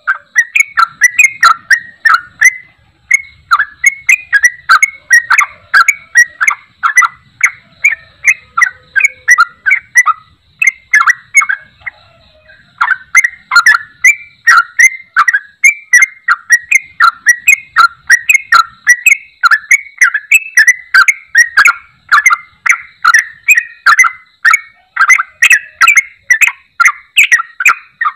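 Yellow-vented bulbul (trucuk) calling in a fast, almost unbroken stream of short chattering notes, several a second, with a pause of about a second near the middle: the kind of 'ampoh' call played to get silent trucuk singing again.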